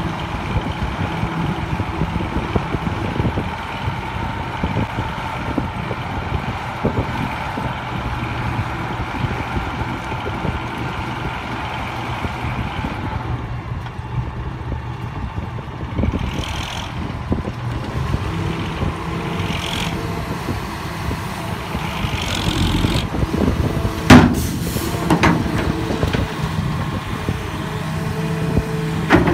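Heavy diesel engines running steadily as a tipper truck's raised bed dumps soil and rock, with an excavator working alongside. From about halfway through come several short hisses, and a loud sharp knock about three-quarters of the way through.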